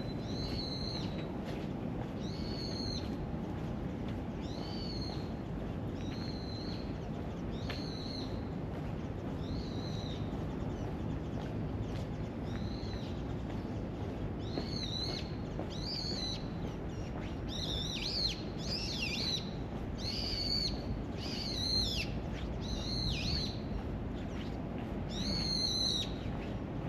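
High, bird-like chirping calls, each short and arched, repeating roughly once a second and growing louder and fuller in the second half. A steady low hiss of background noise runs beneath them.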